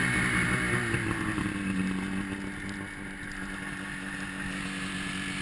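Ski-Doo MXZ X-RS 800 snowmobile's two-stroke Rotax twin dropping in revs over the first couple of seconds, then settling to a steady low idle.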